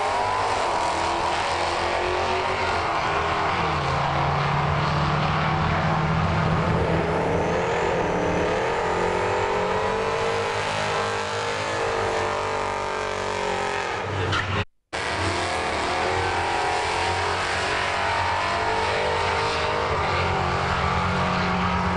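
Super Sedan drag-racing cars' engines at full throttle, launching and running down the strip, their pitch climbing and dipping. The sound cuts out for an instant about two-thirds of the way through, then engines carry on.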